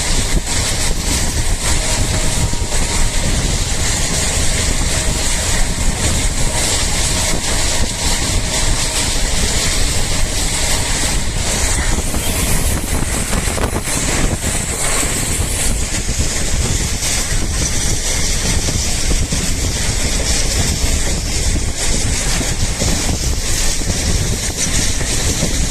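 Passenger train running at speed, heard from on board: a steady rumble of wheels on rails, with wind buffeting the microphone.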